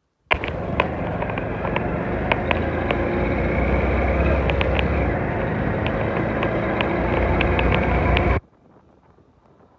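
Motorcycle engine running under way, mixed with wind rush and a few sharp clicks. It starts abruptly and cuts off suddenly about eight seconds in.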